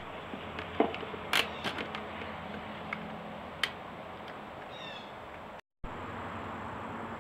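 PVC pipe and plastic fittings being handled, giving sharp clicks and knocks, several in the first two seconds and one near four seconds in. A short run of high chirps comes a little before five seconds in.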